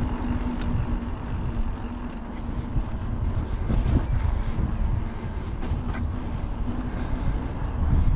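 Bicycle being ridden along a paved cycle path: tyre and road noise with wind rumbling on the bike-mounted microphone, and a few knocks and rattles from the bike.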